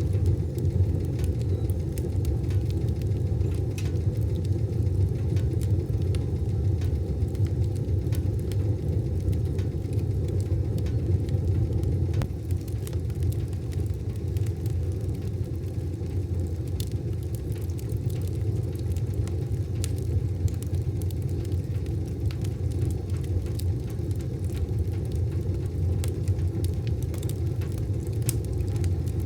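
Wood fire burning in a wood stove: a steady low rumble with scattered, irregular sharp crackles.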